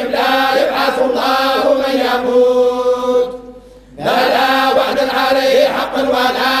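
A group of men reciting the Quran in unison in the Moroccan collective hizb style (tahzzabt), a slow, drawn-out chant. Just past three seconds in, a held note fades and the voices stop for under a second, then start again together.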